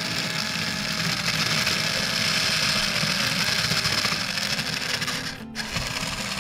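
Battery-powered toy hand mixer whirring steadily as its beaters spin in a bowl of flour, breaking off for an instant about five and a half seconds in. Background music plays along.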